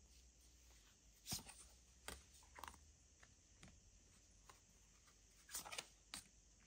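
Tarot cards being handled and laid down on a table: a few soft slaps and swishes of card on card, one about a second in and a small cluster near the end.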